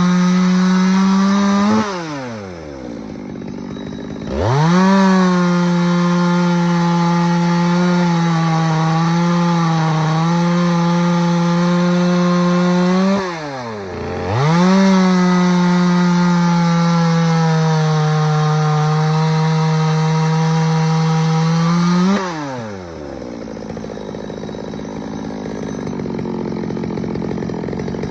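Stihl MS 200T two-stroke top-handle chainsaw making test cuts: held at full throttle for two long runs, its pitch sagging a little under load. Between the cuts and after them the engine drops back to idle. It keeps running at idle on its newly replaced intake boot.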